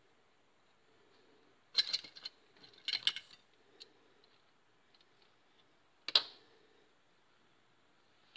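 Small scissors handled and snipping crochet yarn to cut it off for a colour change. A few sharp clicks and snips come around two and three seconds in, and a single sharper click about six seconds in.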